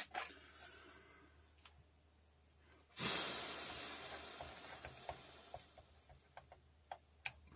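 A long hissing rush of blown air starts suddenly about three seconds in and fades away over about three seconds. A few light clicks of small tools on the motherboard socket follow near the end.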